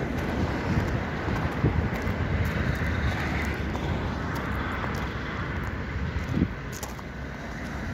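Wind buffeting the microphone: a steady low rumble that swells irregularly, with a few light clicks.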